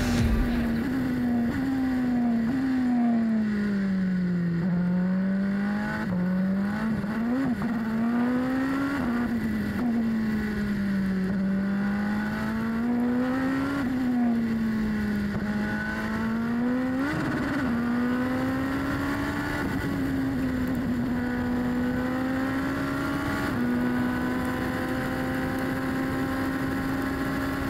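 Onboard sound of a Super Formula car's Honda 2.0-litre turbocharged four-cylinder engine on a flying lap. The note falls and climbs again several times as the car slows for corners and accelerates out of them. Over the last ten seconds it holds a steadier, slowly rising pitch with one small step.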